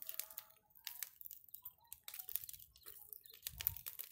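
Irregular crackling and popping from a burning Class A test fire, with a low rumble about three and a half seconds in.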